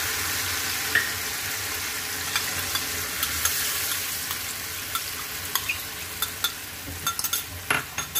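Sauce and a little water sizzling in hot oil in a frying pan with fried ginger, garlic and green chilli, stirred with a spoon. The sizzle eases slightly, and from about halfway through the spoon clicks and scrapes against the pan several times.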